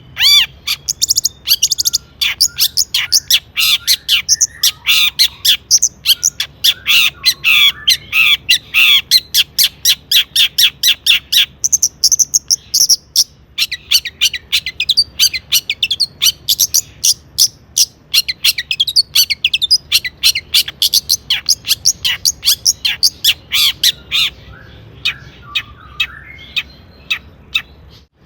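Long-tailed shrike singing a fast, continuous chattering song of rapid, sharp repeated notes. It breaks off briefly about halfway and thins to scattered notes in the last few seconds.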